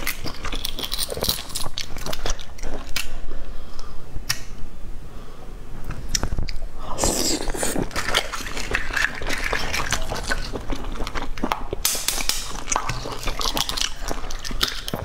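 Boiled eggshells cracking and being picked off by fingers in a run of small, sharp crackling clicks, with chewing and wet drips from the liquid-soaked eggs. The crackling is densest about halfway through.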